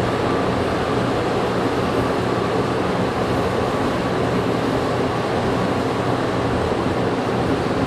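Steady running noise inside a moving rubber-tyred NM-79 metro car: a constant rumble and hiss with a faint low hum.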